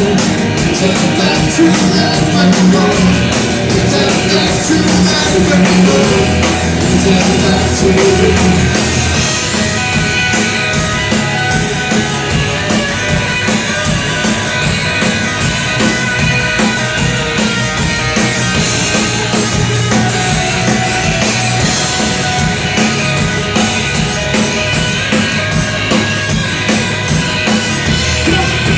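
Live rock band playing loud and steady: electric guitars over a driving drum beat.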